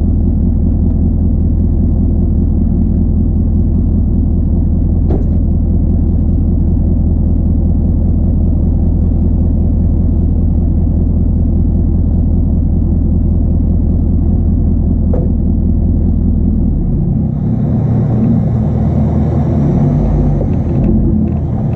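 Diesel pickup truck engine running steadily at idle, close by. About 17 seconds in its note changes and a hiss comes in as the truck starts to move.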